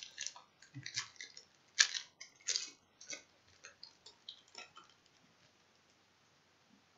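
Trading cards being handled and flipped through by hand: a run of irregular light clicks and scrapes, the loudest about two seconds in, dying away after about five seconds.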